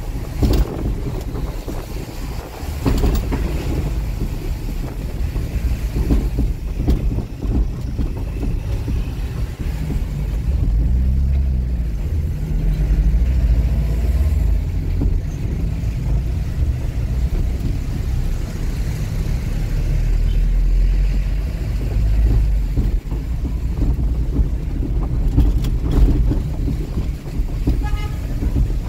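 Tow truck on the move, heard from inside the cab: a steady low engine and road rumble. A brief high tone sounds near the end.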